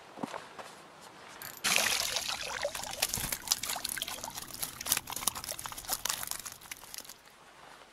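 Water pouring and trickling out through the mesh of a fishing keepnet as it is lifted out of the lake. It starts suddenly about a second and a half in, with many small splashes and drips, and dies away near the end.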